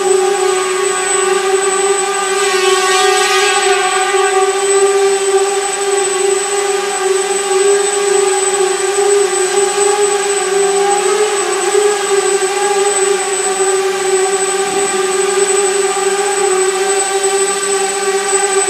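Small quadcopter drone in flight, its motors and propellers giving a steady high whine, with a brief wobble in pitch partway through.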